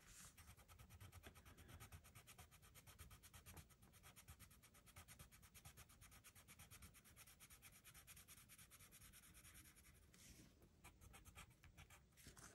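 Faint scratching of a metallic colored pencil shaded quickly back and forth on paper in rapid, even strokes while a swatch is filled in.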